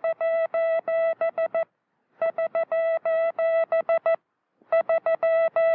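Morse code keyed as a steady beeping tone, sending SOS (three short, three long, three short) three times over with a brief pause between each.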